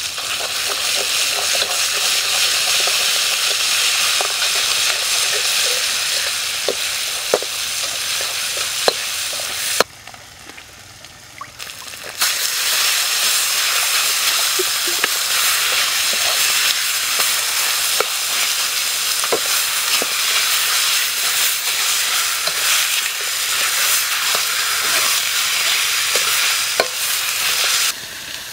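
Chili and garlic paste, then chicken pieces, frying in a steel wok with a steady loud sizzle, while a metal ladle stirs and clicks against the pan. The sizzle drops out for about two seconds near the middle and comes back louder.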